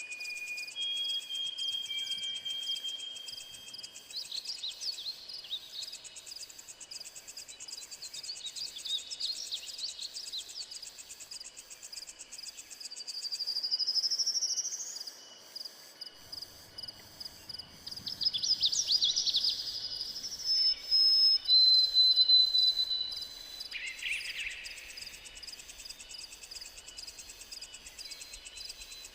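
Forest ambience: crickets and cicadas trilling continuously in a high, pulsing buzz, with wild birds calling in short bursts of chirps several times. A buzzing sweep rises in pitch about halfway through.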